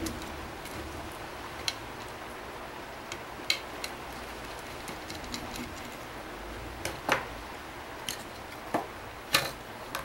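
Scattered light clicks and taps of a small screwdriver and metal parts on a laptop motherboard as the heatsink screws are undone, over a steady faint hiss. A few sharper clicks come near the end.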